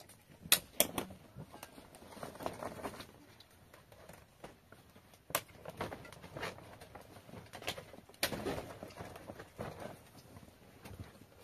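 A few sharp knocks from a hand tool, two close together near the start, another about five seconds in and one about eight seconds in, amid the rustling of plastic tarpaulin as a tarp wall is fastened to wooden poles.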